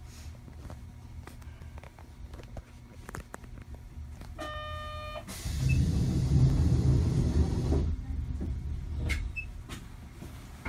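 Sapporo streetcar heard from on board: a steady low rumble with scattered clicks, a short buzzer tone about four seconds in, then a loud hissing rumble for about two and a half seconds before the level drops back.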